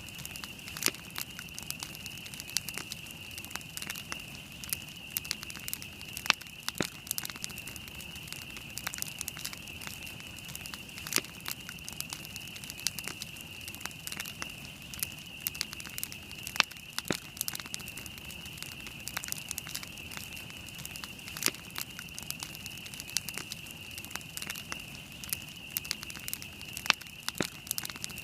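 Wood campfire burning and crackling, with irregular sharp snaps and an occasional louder pop over a steady high hiss.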